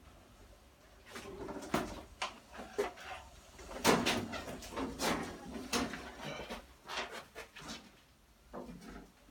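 Irregular knocks, clunks and rattles of a motorcycle being moved and handled, with a few short squeaks between them; the loudest knock comes about four seconds in.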